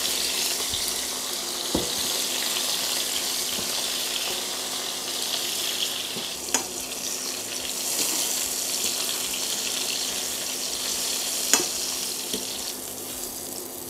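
Zucchini slices frying in sunflower oil in a pan: a steady sizzle, with a few sharp ticks about 2, 6.5 and 11.5 seconds in.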